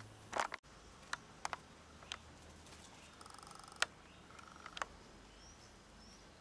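Shar-Pei puppies at play: a short puppy cry near the start, then scattered soft ticks and taps and a brief buzzy puppy growl or whine partway through. Faint bird chirps come near the end.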